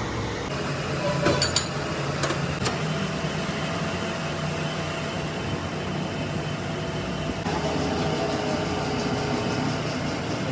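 Steady machine hum with a few sharp metallic clicks between about one and three seconds in; the hum's pitch shifts about three-quarters of the way through.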